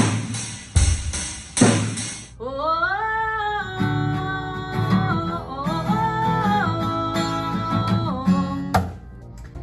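A drum kit struck hard three times with cymbals ringing, then, after about two seconds, acoustic guitars strummed while a girl's voice sings long held, sliding notes. The singing stops about a second before the end.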